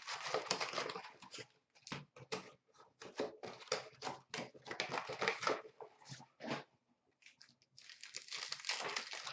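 Rustling and crinkling of a hockey card box and its card packs being handled and opened, with many irregular small clicks and taps; a short lull about seven seconds in.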